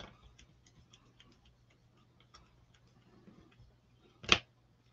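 Plastic stir stick clicking and scraping against a small dish as ink is mixed, in faint irregular ticks, with one sharp, much louder knock about four seconds in.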